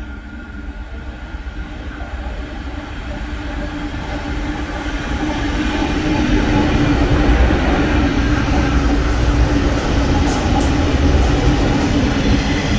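Diesel freight locomotive approaching and passing close by at a station, its engine growing steadily louder for about six seconds and then staying loud as the wagons roll past. Several short high squeaks come near the end.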